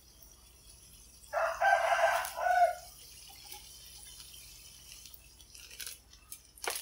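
A rooster crowing once, a cock-a-doodle-doo about a second and a half long starting just over a second in. A few faint clicks and rustles near the end.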